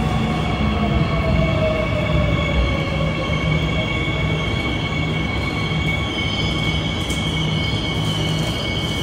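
Hyundai Rotem-built Seoul Line 9 electric train moving slowly past platform screen doors. Its motor whine falls in pitch over the first few seconds as it slows, over a steady high-pitched squeal and a low rumble.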